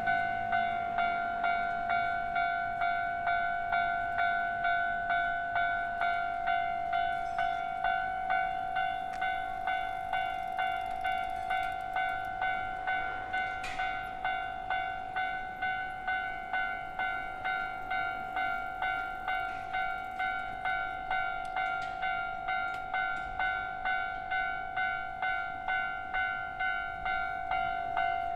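Japanese railway level-crossing warning bell ringing steadily, one ding about every half second, each decaying before the next: the crossing's signal that a train is approaching.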